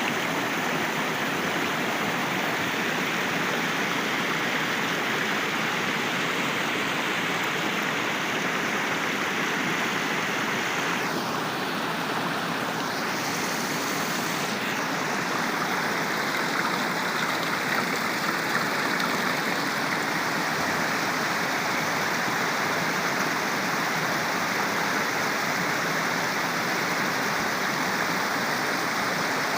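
Waterfall: a steady, even rush of falling water, dulling briefly in the upper range about eleven seconds in.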